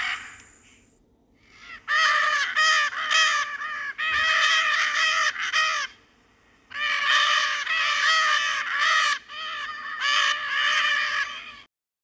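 Parrot squawking: two runs of rapidly repeated loud calls, the first beginning about two seconds in and the second after a short pause near the middle, cutting off just before the end.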